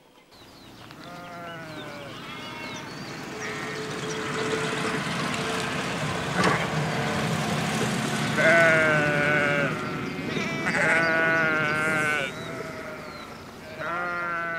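A flock of sheep bleating, many overlapping wavering calls, over a low steady hum. The sound fades in at the start, and the loudest bleats come in the second half.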